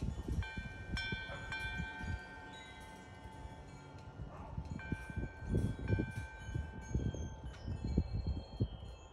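Metal wind chime struck several times, its clear notes ringing on for seconds and overlapping. Irregular low rumbling runs underneath, with a few brief high bird chirps.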